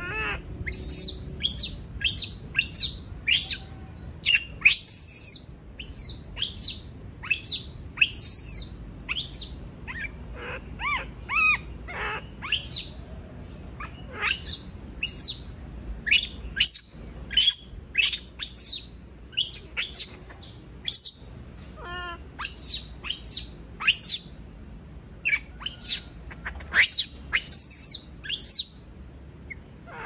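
Young macaque screaming over and over, short shrill shrieks that fall in pitch, about two or three a second: the distress calls of a monkey left alone in its cage.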